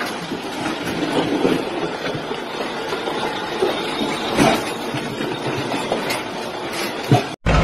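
Heavy truck's front wheel rolling slowly over gravel: a steady crunching rumble of the tyre on grit, with irregular knocks and clanks. It breaks off sharply near the end.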